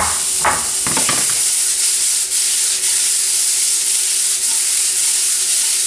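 Oyster and cremini mushrooms, tomatoes and basil sizzling steadily in hot olive oil in a pan while being tossed.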